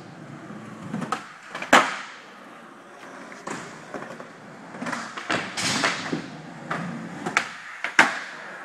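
Skateboard wheels rolling on a concrete floor, broken by several sharp clacks of the board slapping down, the loudest about two seconds in and another near the end.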